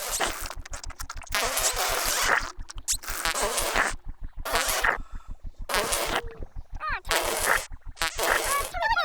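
Cartoon sound effects of the Tombliboos noisily drinking Pinky Ponk Juice: repeated hissing, spluttery bursts and a few squeaky, wobbling character noises, over the Pinky Ponk airship's steady low chugging of about six beats a second.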